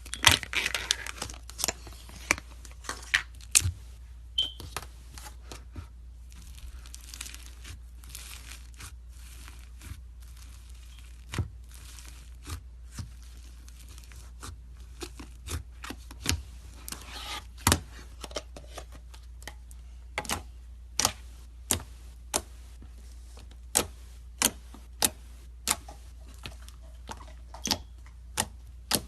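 Hands squeezing and stretching slime: irregular sharp pops and clicks of trapped air bursting, with crackling stretches near the start and again about two-thirds of the way through.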